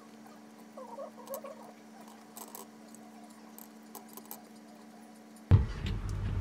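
Light scattered taps and scratchy ticks as fried takoyaki balls are set onto a ceramic plate, over a faint steady hum. About five and a half seconds in, a sharp knock is followed by a louder low rumble.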